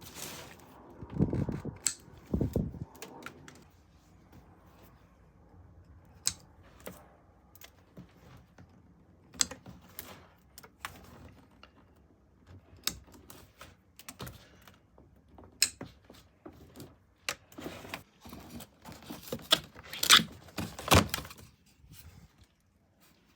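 Irregular clicks, knocks and clatter of hard objects being handled and moved in a small boat cabin, with a few dull thumps in the first seconds and a busier run of louder knocks near the end.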